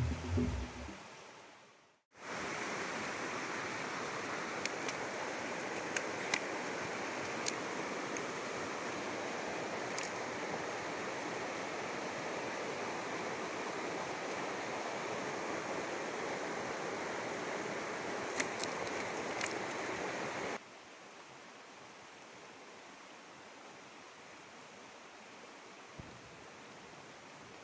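Steady rush of a fast, muddy river flowing over rock rapids, with a few faint clicks. About 20 seconds in the rush drops suddenly to a quieter level.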